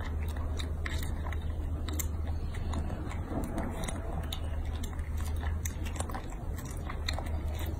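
Baby macaque biting and chewing a ripe strawberry close to the microphone: scattered small wet clicks of eating over a steady low hum.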